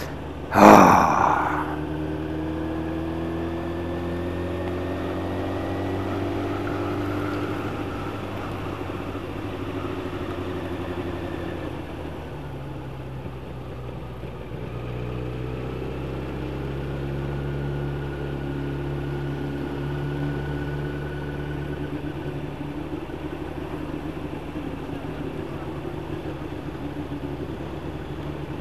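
Yamaha YZF 1000cc inline-four motorcycle engine heard from the rider's seat, its pitch rising as it pulls over the first several seconds, then running steadily at a lower note, under constant wind rush. A short loud burst of noise comes about a second in.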